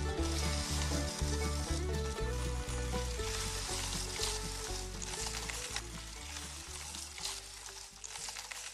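Background music with a steady beat under a continuous hissing noise. Both cut off abruptly at the end.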